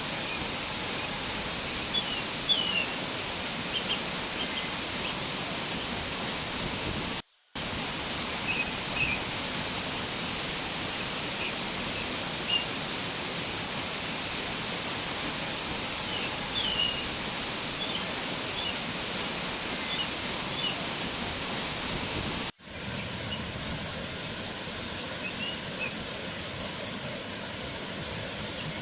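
Looped nature ambience: a steady, even rushing noise with small birds chirping and twittering over it, and a thin steady high tone above. The sound drops out to silence for a moment about seven seconds in, and about twenty-two seconds in the track cuts to a slightly different background.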